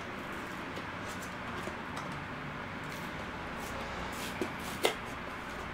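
Steady background hiss of room noise, with a few soft clicks and one sharper click near the end.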